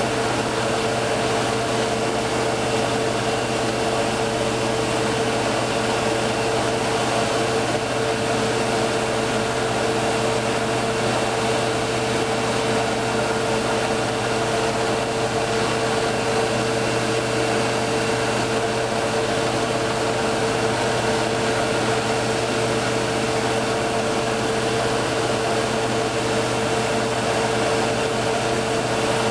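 Drill with a buffing wheel in its taped-up chuck, running steadily at constant speed: an even motor whine over a low hum, used here to buff a saw-blade knife.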